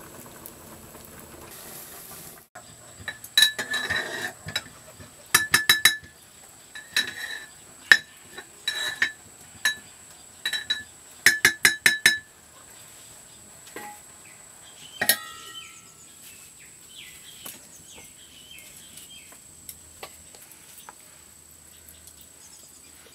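Metal spoon clinking against a metal cooking pot in quick clusters of ringing strikes as the pot is stirred, with one louder ringing clink later and a few light clicks near the end. The first couple of seconds hold the hiss of the pot boiling hard over a wood fire.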